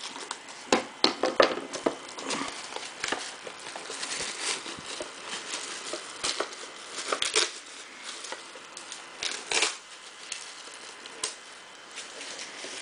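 Plastic shrink wrap being cut and torn off a cardboard box of trading cards: irregular crinkling and tearing with scattered sharp clicks and taps of the box being handled.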